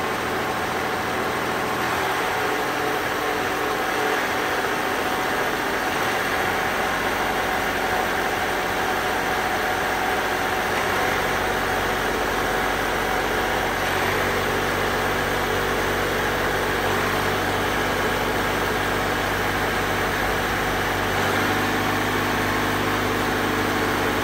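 Tier 4 diesel engine of a 4-inch gravel pump unit running at raised speed with the belt-driven pump clutched in, a quiet, steady note whose pitch shifts a few times.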